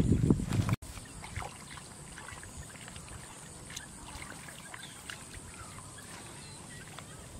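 Hands churning and scooping in muddy water, loud low sloshing that cuts off abruptly under a second in. After the cut, quieter faint squelches and small splashes of wading through shallow mud, with scattered faint clicks and chirps.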